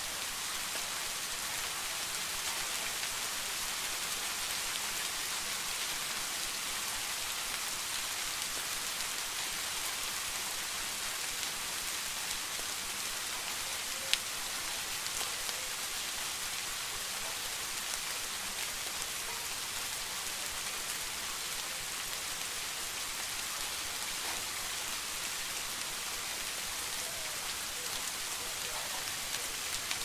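Steady rain falling, an even hiss strongest in the upper range, with one sharp tick about halfway through.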